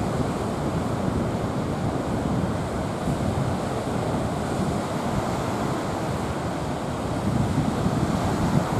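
Waves breaking steadily on a sandy beach, with wind buffeting the microphone.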